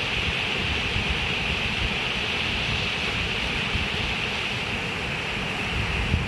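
Steady rush of flowing water, with a low, uneven rumble underneath.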